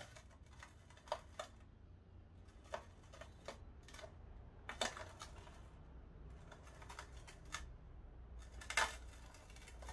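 Scattered light clicks and taps of a hand handling a speaker cabinet and its slide-in battery pack, over a low hum. The two loudest knocks come about five and nine seconds in.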